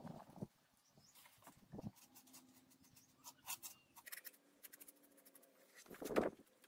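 Faint scratchy strokes of a small paintbrush dabbing and brushing paint along a craft piece, with a louder handling noise about six seconds in.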